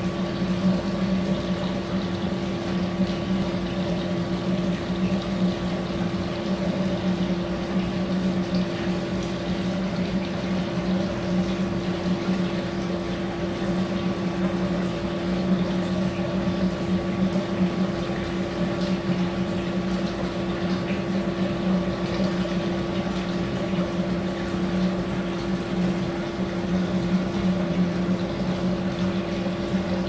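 Aquarium aeration running: a steady electric hum with air bubbles streaming from an air stone into the tank water.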